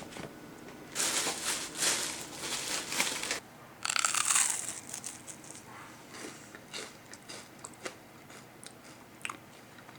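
Crinkling and rustling of packaging being handled, in two bursts during the first half, followed by scattered small clicks and taps.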